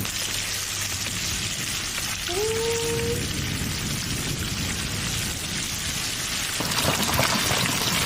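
Steady sizzling hiss of mutton curry cooking in a large pot over a fire, getting louder about six and a half seconds in. A brief rising tone sounds about two seconds in.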